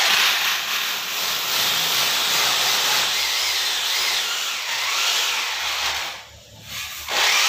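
Electric drill with a masonry bit boring into a concrete wall, running steadily. It stops briefly about six seconds in, then starts again near the end.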